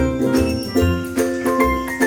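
Upbeat background music with a steady beat and bright chiming, bell-like notes.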